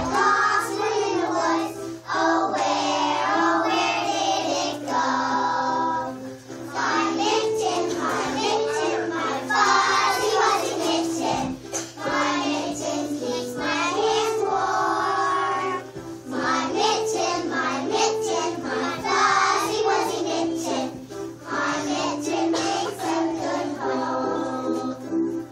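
A group of kindergarten children singing a song together in unison, in continuous phrases with held notes, along with musical accompaniment.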